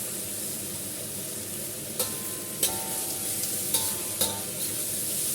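Bitter melon sizzling as it is stir-fried in a hot wok, with a spatula clicking against the wok a few times.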